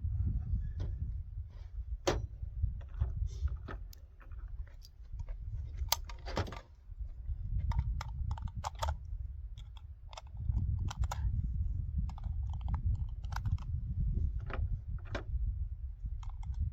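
Irregular small metallic clicks and clinks of rifle and suppressor parts being handled, over a steady low rumble of wind on the microphone.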